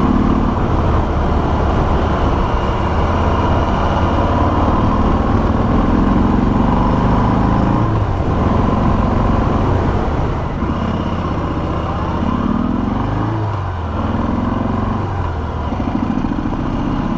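A stock Harley-Davidson Sport Glide's Milwaukee-Eight 107 V-twin running on the road through its stock exhaust, heard from the rider's seat. The engine note drops and then climbs again about two-thirds of the way through.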